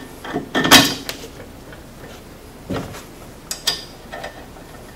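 A few light knocks and clicks of metal sway-bar end-link hardware handled and fitted by hand; the loudest knock is about a second in, with a couple of sharper clicks later.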